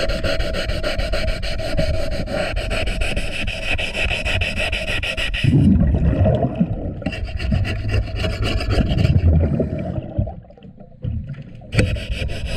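Underwater scraping and rubbing on a boat propeller as a diver scrubs fouling off it with a scraper and scouring pad. A lower bubbling rumble from the diver's exhaust bubbles comes in about halfway through, with a brief lull shortly before the end.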